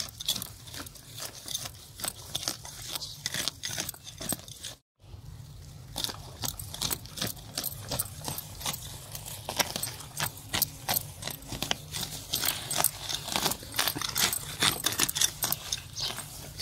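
Grass weeds being pulled up by hand from dry soil: a steady run of irregular crackles and rustles from tearing roots and crumbling earth. The sound cuts out completely for a moment about five seconds in.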